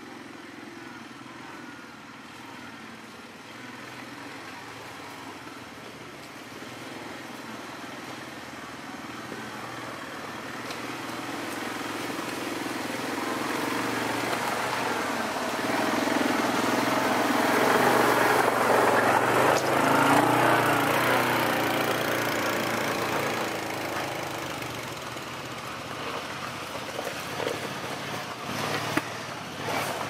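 ATV engine running, steady underneath, with the overall sound building to its loudest a little past the middle and then easing off. A few sharp knocks come near the end.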